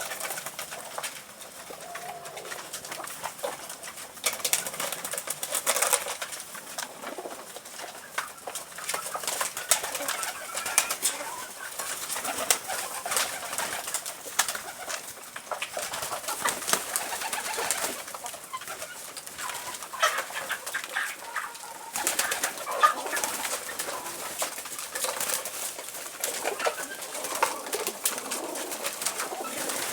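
Domestic pigeons cooing, among frequent sharp clicks and rustles.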